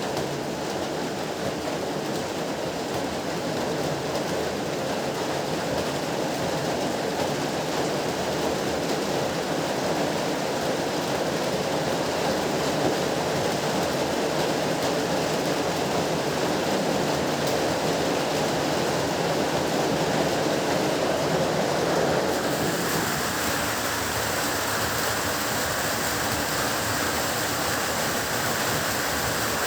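Heavy rain falling in a steady, dense hiss. About three-quarters of the way through, the sound shifts abruptly: the deeper part thins out and a brighter, higher hiss takes over.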